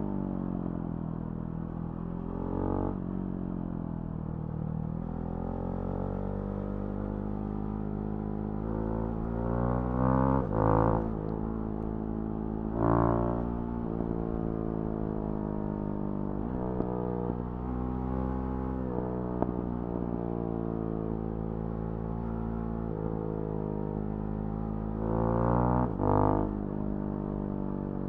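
Single-cylinder engine of a Husqvarna Svartpilen 701 through a Remus NXT aftermarket exhaust, heard while riding. The engine note climbs and drops repeatedly with throttle and gear changes, with short louder bursts of throttle about ten, thirteen and twenty-six seconds in.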